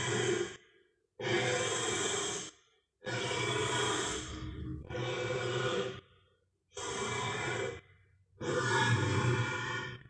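Designed Tyrannosaurus rex vocal sound effects: about five long, breathy growling calls, each a second or so, with short pauses between them.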